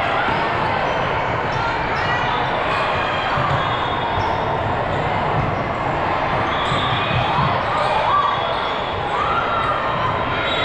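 Busy gymnasium din from a volleyball tournament: balls thumping on hands and a hard floor, mixed with many distant voices, steady throughout.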